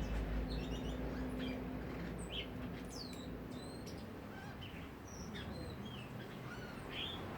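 Several songbirds chirping and calling: scattered short high notes and quick rising and falling whistles. A low steady rumble runs underneath and fades out about halfway through.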